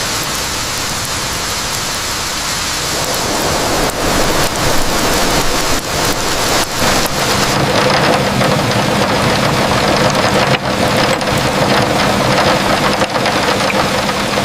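Heavy rain pouring steadily, a dense hiss that grows louder about four seconds in, with a faint steady hum underneath from about halfway.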